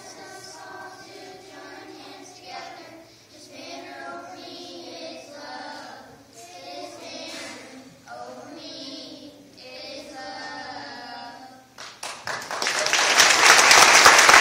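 A group of children singing a song together. About twelve seconds in the song ends and loud applause breaks out.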